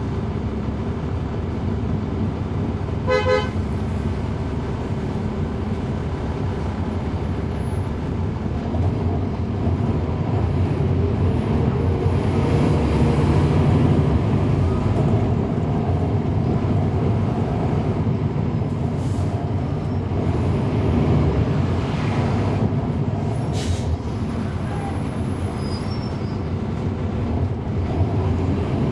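2011 NABI 416.15 transit bus heard from its back seat, its Cummins ISL9 inline-six diesel and ZF Ecolife automatic running under way with the radiator fan on, the engine growing louder around 12 to 14 seconds in. A vehicle horn toots briefly about three seconds in.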